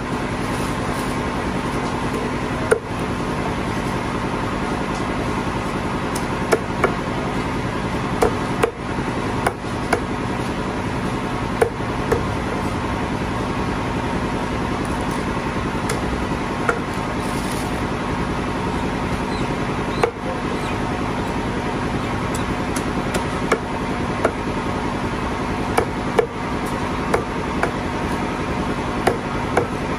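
Meat cleaver chopping chicken on a wooden chopping block: irregular sharp knocks, some in quick pairs, over a steady machine-like drone.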